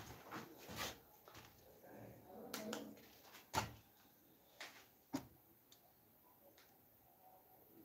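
Faint, scattered sharp clicks and knocks, a handful in all, the loudest about three and a half seconds in and another about five seconds in.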